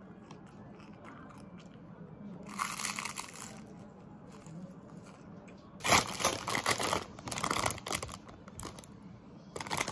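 A crispy, flaky snack crunching as it is broken and bitten. Then a clear plastic snack bag crinkles loudly as it is handled, in a long burst a few seconds in and again near the end.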